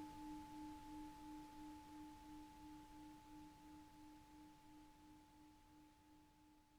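Tibetan singing bowl's fading ring-out: a low tone wavering about three times a second with a fainter higher overtone above it, dying away steadily.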